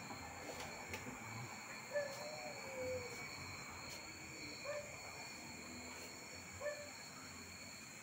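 Faint night chorus of insects: a steady high-pitched shrill. A few short low calls from another animal come about every two seconds over it, the first a longer falling call.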